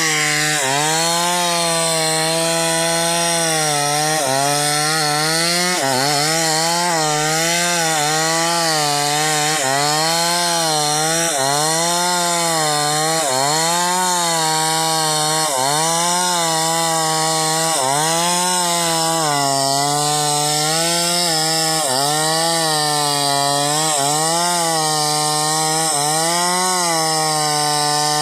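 Chainsaw running at high revs while cutting through a timber beam. Its pitch dips under load and recovers about every one and a half to two seconds as the bar is worked through the wood.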